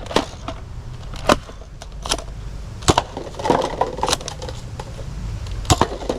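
A handful of sharp plastic clicks and knocks at uneven intervals, about six in all, with some rustling handling noise in the middle, as a toy blaster is handled.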